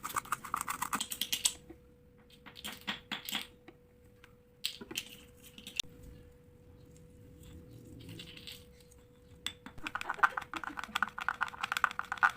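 A spoon stirring and clinking rapidly against a glass, in one quick run at the start and another from about ten seconds in, with scattered single clinks between. A faint steady hum runs underneath.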